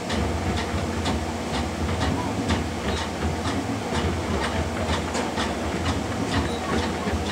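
High-school marching drumline of snares, tenor drums and bass drums playing a cadence, sharp stick hits about twice a second over a steady low rumble and crowd noise.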